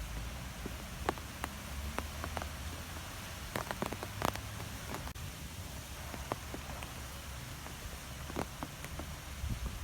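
Wind blowing through trees: a steady hiss with many scattered light ticks and taps over a low rumble.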